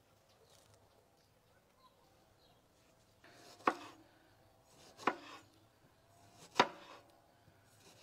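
Knife slicing a tomato on a wooden cutting board: three slices in the second half, each ending in a sharp knock of the blade on the board, about a second and a half apart.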